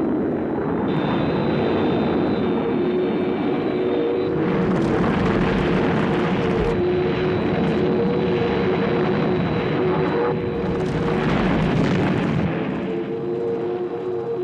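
Thunderbird 1's jet engines, a sound effect: steady rushing jet noise with a held whine, swelling with louder hiss twice, about four and ten seconds in.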